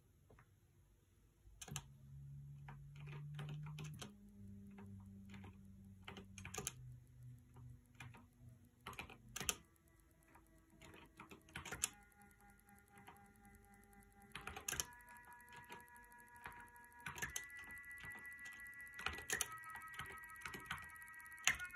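NEMA 23 stepper motor under field-oriented control, humming with a steady tone that jumps to a new pitch every two to three seconds, with a click at each change. The tones are a low hum for the first several seconds, then a higher whine for the rest.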